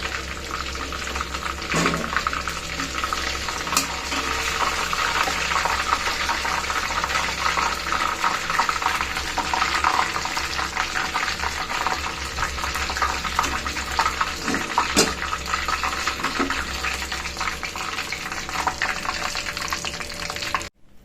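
Chicken pieces deep-frying in hot groundnut oil: a steady, crackling sizzle with a few light clicks, cutting off abruptly just before the end.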